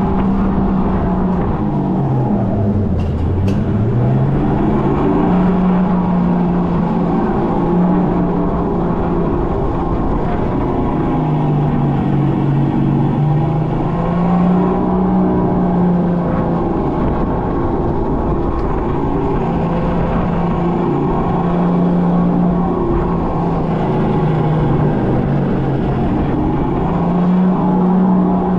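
Electric go-kart's motor whining as it drives around the track, its pitch dipping sharply about three seconds in as the kart slows and then rising and falling with speed through the lap, over a steady rush of wind and tyre noise.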